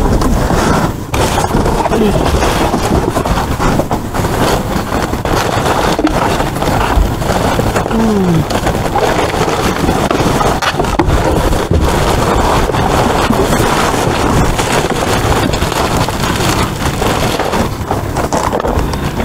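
Cardboard boxes and bags being shifted and rummaged close to the microphone, with scraping, rustling and knocking over a steady rushing noise.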